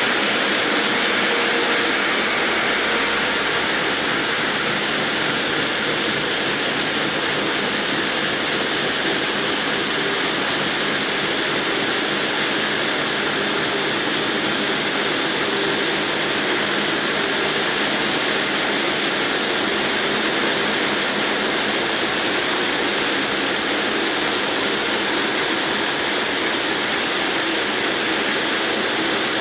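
Multi-blade granite block cutter's circular saw blade cutting through a granite block under a water coolant spray: a loud, steady, unchanging hiss of blade on stone and spraying water, with a faint motor hum beneath.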